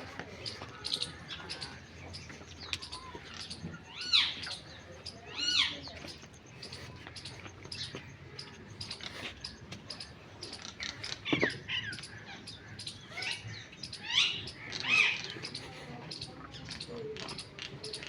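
Birds chirping steadily in many short high calls, with several louder swooping calls rising and falling in pitch.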